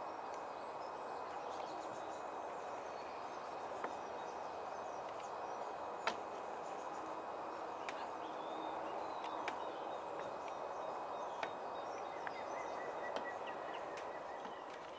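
Steady outdoor background noise with faint, high bird calls, one held thin call near the end, and a few sharp clicks scattered through.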